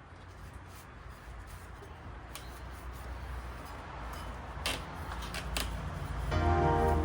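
Workshop rustling and rubbing noises with a few sharp clicks. Background music comes in near the end.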